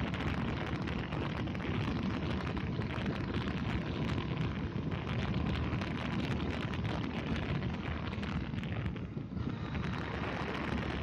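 Wind buffeting the microphone of a camera on a moving motorcycle, a steady rushing rumble with the bike's engine and tyre noise underneath.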